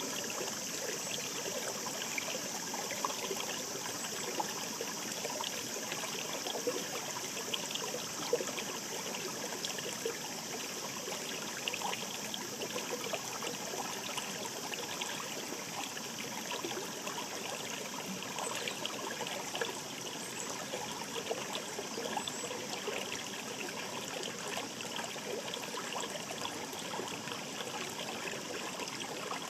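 Shallow mountain stream babbling steadily, full of small trickles and splashes.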